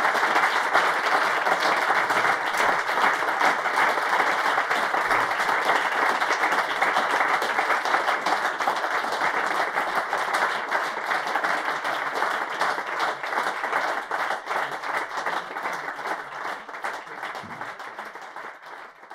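Audience applauding with dense, steady clapping that slowly fades out over the last few seconds.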